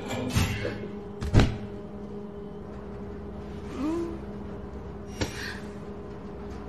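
Cartoon sound effects over a steady low hum: one loud thump about a second and a half in, two short rising-and-falling murmurs, and a sharp click about five seconds in.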